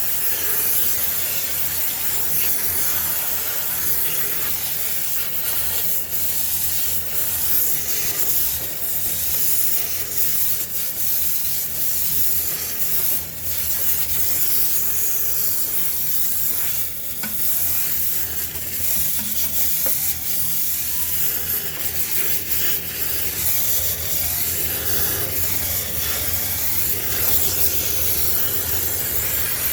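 High-pressure spray cleaning the inside of a sneaker washing machine: a steady hiss with a low machine hum beneath it, dipping briefly a few times.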